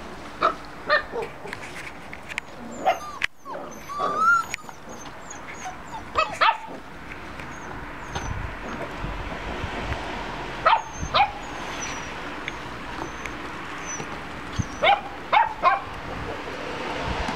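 Bernese mountain dog puppies yipping and barking: short high-pitched calls, two or three at a time every few seconds, with one longer whining yelp about four seconds in.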